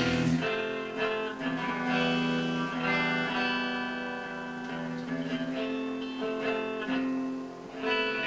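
Electric guitar playing a slow passage of held, ringing notes, changing every half second or so. The music gets louder again near the end.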